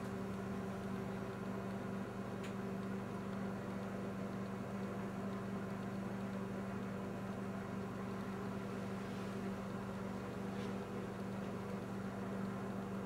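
Steady low hum with a constant pitch, with two faint ticks, one a few seconds in and one near the end.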